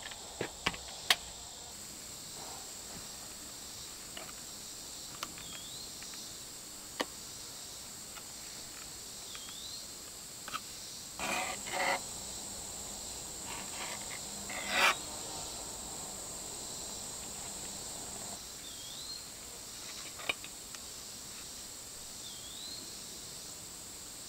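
Insects buzzing steadily at a high pitch, with a bird's short upward-sliding call four times. A few brief scrapes of a paint brush working thick roofing cement onto a wooden post.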